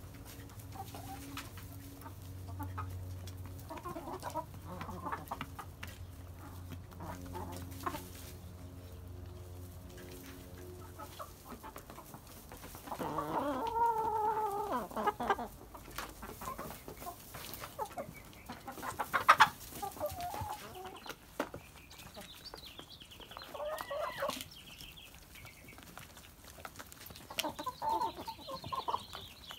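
Domestic hens clucking and squawking, with a longer, wavering call about halfway through and more clucks near the end. A low steady hum runs under the first third.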